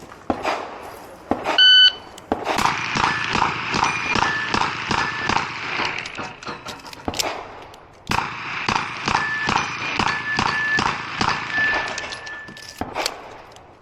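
Shot-timer start beep, then a Smith & Wesson 929 9mm revolver fired in quick succession at steel plates, the plates ringing on hits. The shots break off for about a second around halfway, then go on again.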